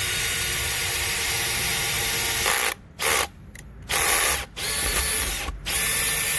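Makita XPH07 brushless hammer drill driving a screw on clutch setting 7. The motor runs with a steady whine for about two and a half seconds, then stops and starts in several short trigger pulls before a longer final run.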